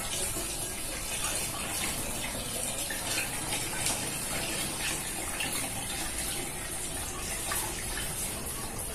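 Molasses diluted in water pouring steadily from an upturned plastic bottle into a plastic jerrycan, a continuous splashing stream of liquid.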